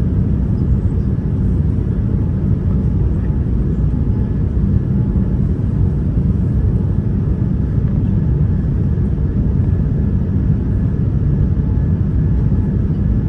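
Steady low rumble inside the cabin of a Boeing 787-9 airliner, the engine and airflow noise heard from a window seat, with a faint steady whine above it.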